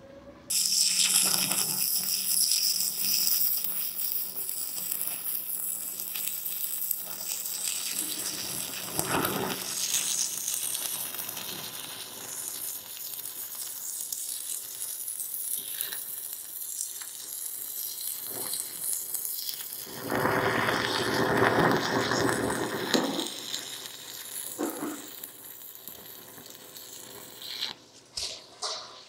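Shielded metal arc (stick) welding with a 3/32-inch E308L-16 stainless steel electrode at 85 amps DCEP: the arc strikes about half a second in and runs with a steady frying hiss, louder for a few seconds about two-thirds of the way through. It stops near the end, followed by two short bursts.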